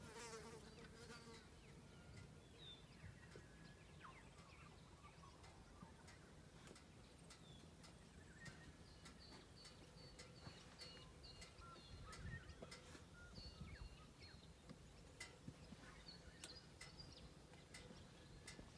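Near silence: faint outdoor ambience with scattered short, high chirps and light clicks.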